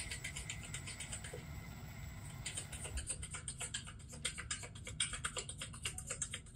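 Power drill running slowly as its bit bores out the rivet of a die-cast toy car: a steady low motor hum with a fast crackling rattle of the bit cutting the metal. It stops at the very end.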